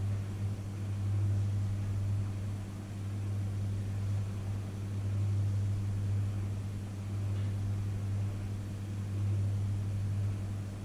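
Panasonic inverter microwave oven running: a steady low hum over an even hiss.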